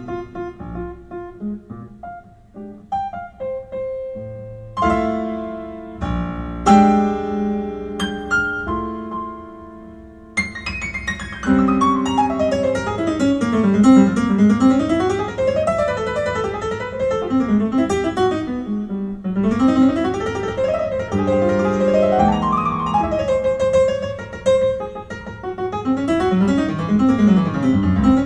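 Solo piano with no singing: slow, sparse chords at first, then, about a third of the way in, flowing arpeggios that sweep up and down the keyboard.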